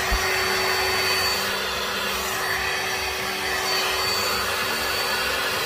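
Milwaukee M12 cordless dust extractor running at a steady speed, its small vacuum motor giving a steady hum with a high whine over the rush of air.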